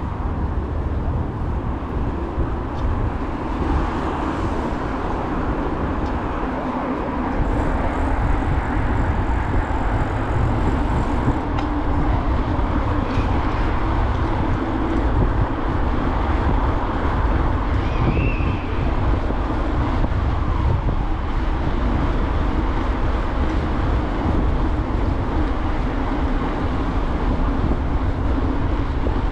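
Steady road noise of riding a bicycle along a city street: a low rumble of wind and tyres on asphalt, with traffic around, getting a little louder about eight seconds in.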